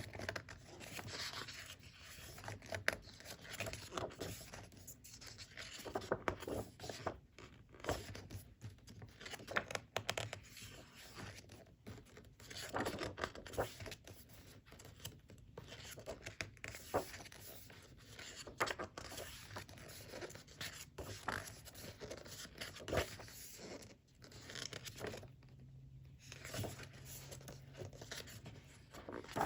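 Hands unpacking a photo-folio: paper and plastic packaging being rustled, scraped and torn, with scattered light taps and clicks.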